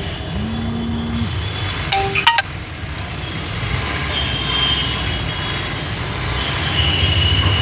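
Steady rumble of road traffic, with a held horn-like tone for about a second near the start and a short ringing clink about two seconds in.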